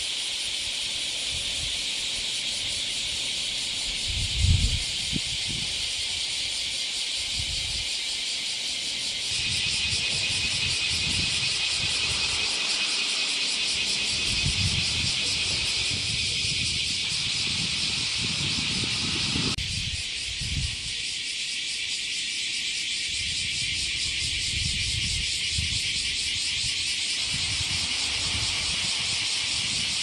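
Dense chorus of bear cicadas (kumazemi) buzzing steadily, their song beginning in full after rain. A few low thumps sound under it, the loudest about four seconds in, and the chorus changes abruptly twice.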